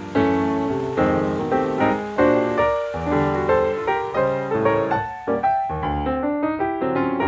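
Background piano music: a steady stream of struck notes, several sounding at once, each fading after it is played.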